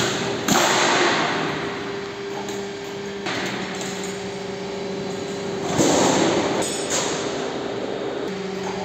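Galvanised steel Z purlins scraping and clanking against a stack as they are handled, three times: about half a second in, a little after three seconds, and near six seconds. Under it, the roll-forming machine's motor hums steadily.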